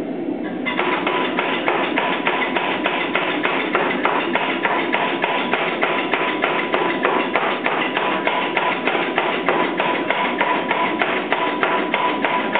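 A 400 lb Chambersburg air power hammer forging a hot bar of 4140 steel, striking in a steady, even rhythm of about three blows a second. The blows start under a second in.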